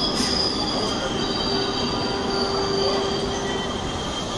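Suburban electric multiple-unit train rolling along, its wheels squealing on the rails in steady high tones over the running noise of the coaches.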